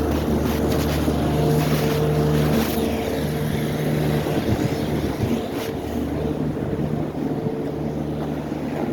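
Snowplow truck's engine running steadily as it passes.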